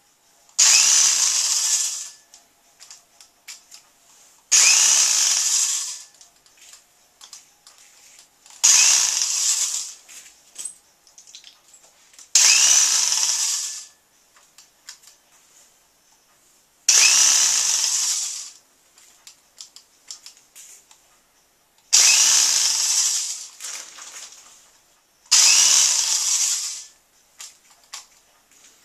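Electric power drill run in seven short bursts, each about a second and a half, its high whir starting suddenly and trailing off as the trigger is released, with light ticks and taps in the pauses between.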